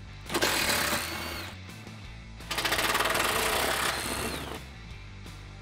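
Milwaukee M12 Fuel cordless impact wrench spinning and hammering skid-plate bolts loose, in two bursts: one of about a second, then a longer one of about two seconds with a rapid rattling hammer.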